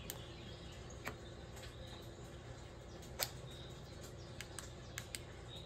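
Small LED flashlight's switch clicked about seven times at uneven intervals, cycling through its three light settings. The loudest click comes a little after three seconds in.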